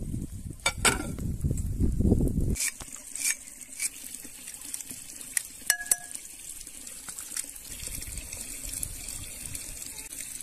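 Running water, heavier for the first two and a half seconds, with scattered sharp clicks and taps.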